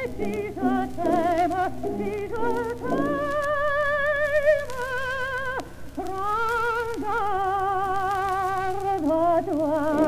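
Operatic soprano singing from an old record, with a wide, even vibrato, sliding between phrases and holding two long notes in the middle, over a steady low hum.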